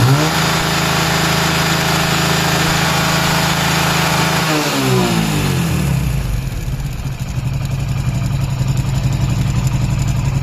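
Hero Splendor iSmart's single-cylinder four-stroke engine revved up and held, then dropping back about halfway through to a steady idle. The engine has just been rebuilt, but its oil supply is blocked and no oil reaches the top end, which the mechanic links to an engine that doesn't sound as it should and to tappets that keep working loose.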